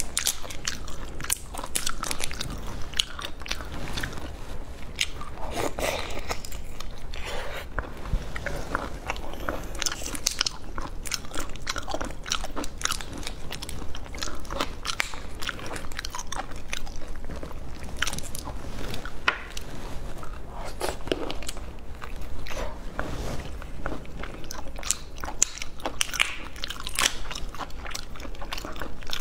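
Close-miked eating sounds: the shell of a large raw marinated shrimp cracking and crackling as it is pulled apart by hand, mixed with biting and chewing, in many small irregular crunches.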